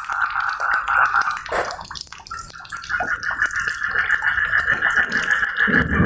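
Tropical rain with many fine drips, under a steady pulsing chorus of frogs that breaks off for a moment about two seconds in and then resumes. A low rumble, thunder, swells in near the end.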